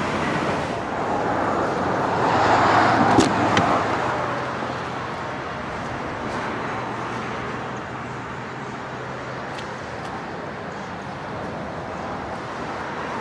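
Road traffic passing, with one vehicle swelling loudest about two to four seconds in and then fading to a steady background hum. Two sharp clicks come close together a little over three seconds in.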